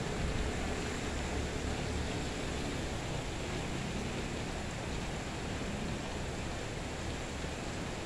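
Steady hiss of falling rain with a low rumble underneath.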